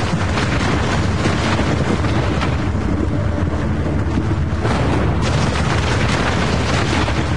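Sound effect of a nuclear explosion's blast: a continuous deep rumble with a rushing hiss over it, steady in level throughout.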